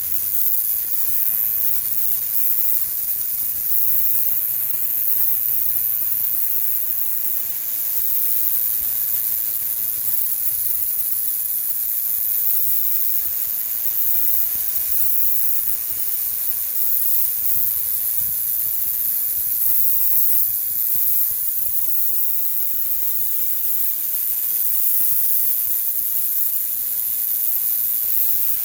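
Greenworks 2000 psi electric pressure washer spraying: the water jet makes a steady, loud high hiss.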